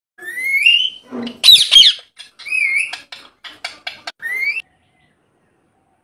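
Rose-ringed parakeet calls: a rising whistle, a loud harsh squawk, a wavering whistle, a quick run of short clicks, then another rising whistle, ending about four and a half seconds in.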